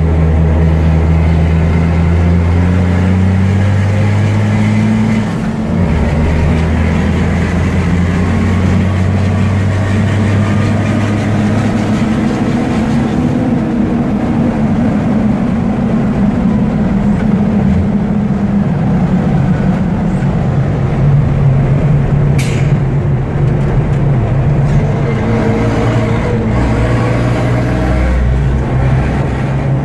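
MAN Dakar race truck's turbo diesel engine heard from inside the cab at speed, a steady loud drone at about 2,100 rpm. After a brief dip a few seconds in, the pitch rises a little, then falls back about two-thirds of the way through, and a short sharp hiss comes soon after.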